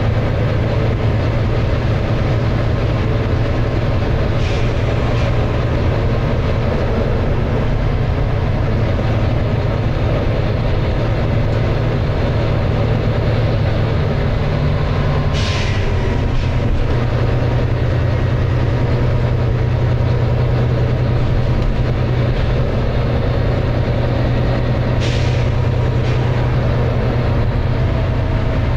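Volvo B9TL double-decker bus's six-cylinder diesel engine running steadily under load, with short air hisses about four seconds in, at about fifteen seconds (the loudest, where the engine note shifts) and near twenty-five seconds.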